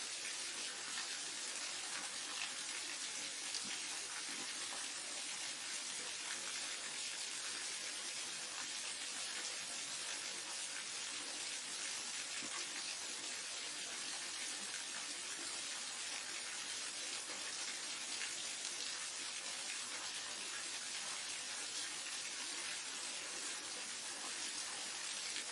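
Waterfall: a steady, even rush of falling water, mostly high hiss with little low rumble.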